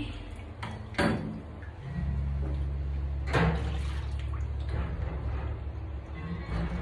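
Water sloshing and splashing in a stainless steel sink as bar glasses are washed by hand, with two louder sudden sounds about a second in and past the middle. Music with a steady bass line plays underneath.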